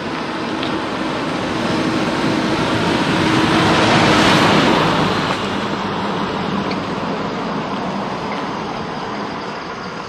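A pickup truck drives past on a concrete road, engine and tyre noise swelling to a peak about four seconds in, then fading as it moves away.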